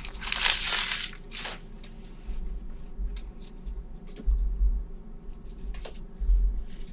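Trading-card pack wrapper crinkling and tearing open for about a second and a half, then quieter handling of the cards with faint ticks and a few dull thuds.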